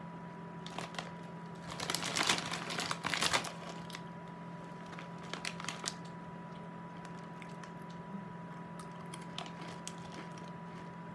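A pretzel snack bag crinkling for about two seconds as a hand rummages in it, then a few softer crunches of a hard butter pretzel being bitten and chewed. A faint steady electrical hum runs underneath.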